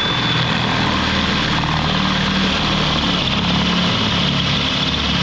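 Ryobi cordless drill running steadily under load, boring a hole into the front Dana 30's cast-iron diff housing for the e-locker's wiring bung, a steady motor drone with a thin high whine.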